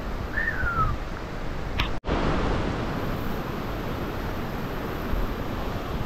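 Mountain river rushing over boulders in white-water rapids, a steady noise of water. A short falling whistle sounds about half a second in, and the sound cuts out for an instant about two seconds in.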